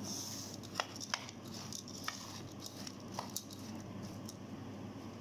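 A metal spoon stirring crisp fried chana dal with dry spice mix in a bowl: a steady rustle of the dry lentils, with several sharp clicks of the spoon against the bowl.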